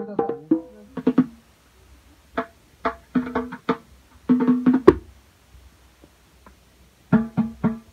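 Skin-headed hand drums struck by hand in short groups of quick beats with pauses between, each stroke ringing briefly at a low pitch.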